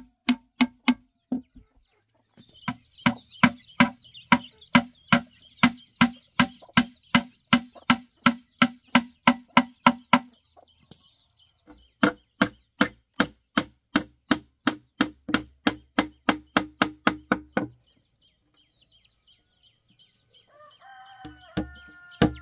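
Steady, even chopping, about three strokes a second, with a few short pauses. High chirping sounds under the chopping in its first part, and a chicken clucks near the end.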